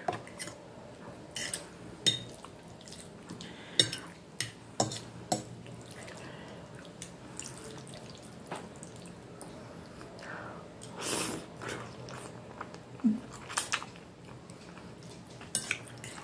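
Knife and fork clicking and scraping against a plate at irregular intervals, with wet mouth sounds of eating between the clicks.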